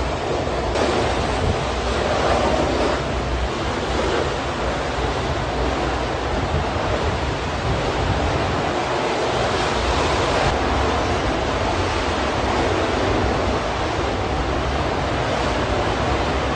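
Steady rushing noise of leaking gas burning as a tall jet of flame, an even dense noise with no separate events.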